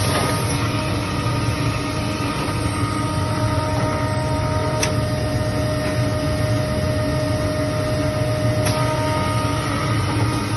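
Repaired spindle motor running steadily on its machine during a test run, a constant hum with thin whining tones whose pitch shifts a couple of times. It runs without trouble after the repair.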